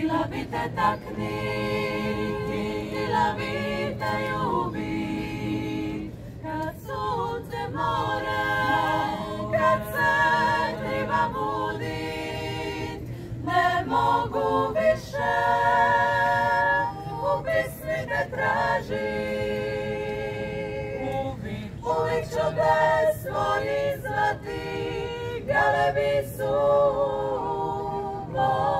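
Women's vocal ensemble of about nine voices singing a cappella in several-part harmony, in phrases with held, wavering notes and short breaks between them.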